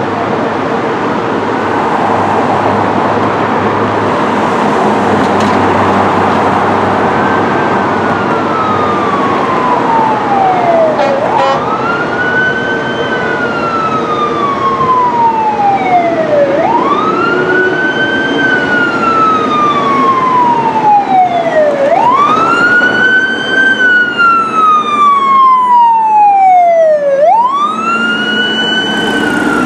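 Fire truck siren on a 2000 American LaFrance/LTI ladder truck responding to a call, growing louder as the truck approaches. Each cycle rises quickly and then falls slowly over about five seconds, repeating, over steady traffic and engine noise.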